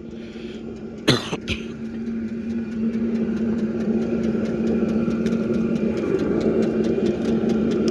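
Vevor 5 kW diesel air heater's blower humming steadily and growing louder a few seconds in as it ramps up, after two sharp clicks about a second in. Faint rapid ticking runs underneath.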